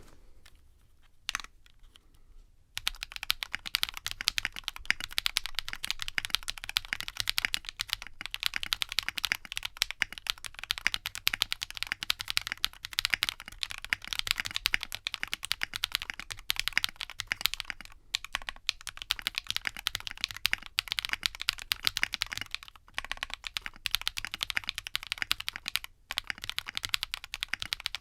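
Typing on a 60% mechanical keyboard in a KBD Fans A60 aluminium case, gummy O-ring mounted with silicone cord, with a Delrin full plate, felt plate foam and a four-flex-cut PCB. It is a fast, continuous clatter of keystrokes that starts about three seconds in, with a few short pauses.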